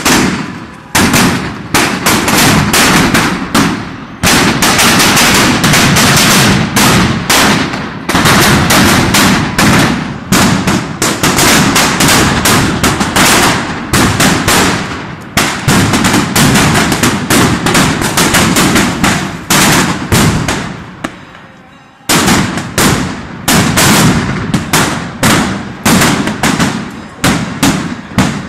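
Dense barrage of firecrackers going off in rapid, overlapping bangs, easing off for a couple of seconds about two-thirds of the way through before starting up again.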